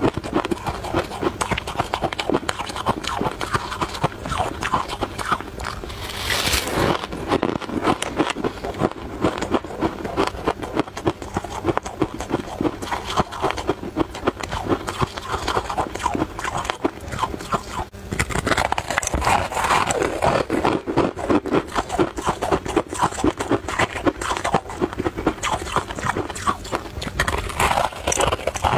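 Close-up crunching and chewing of a crispy puffed tartary-buckwheat snack: dense, rapid crackly crunches with each bite and chew.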